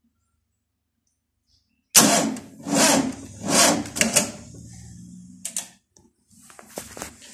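Starter motor cranking a VW Type 4 two-litre air-cooled engine: it kicks in suddenly about two seconds in, turns the engine over slowly in three heavy strokes under a second apart, then drags on as a low whir with a few clicks, and the engine does not fire. The owner blames too little current reaching the starter through wires that are not strong enough.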